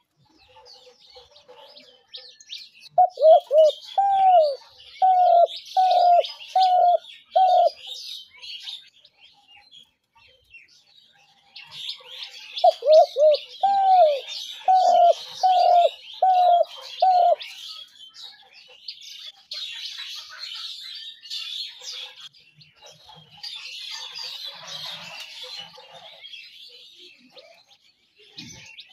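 Spotted dove cooing: two phrases of quick, repeated arched coo notes, about ten seconds apart, each lasting roughly four seconds. Small birds chirp steadily and high-pitched underneath.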